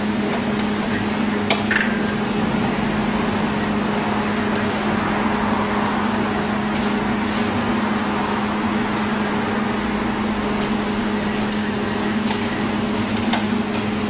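Steady low electrical hum over a heavy hiss, with a few faint clicks of a screwdriver turning screws in the microwave's sheet-metal case.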